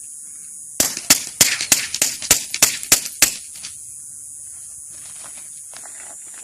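Glock 45 9mm pistol fired in a rapid string of about nine shots, roughly three a second, starting about a second in and stopping after a little over two seconds.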